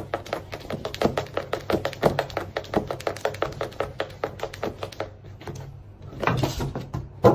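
A rapid run of light taps or clicks, several a second, thinning out after about five seconds, with a sharp knock near the end.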